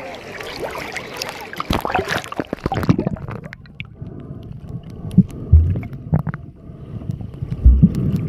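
Seawater sloshing and splashing around a camera at the surface; about three seconds in the camera goes under, the splash cuts off, and the sound turns into muffled underwater gurgling with a few dull low thumps.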